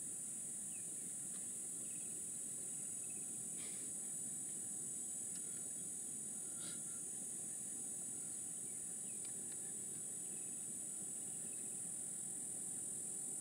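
Steady high-pitched chorus of insects in the roadside grass, with a couple of faint short chirps over it.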